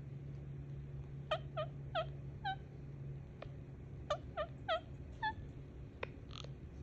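Rose-ringed parakeet giving short, harsh squawks while it is held and stroked: two quick runs of four calls, a second or so apart, over a steady low hum.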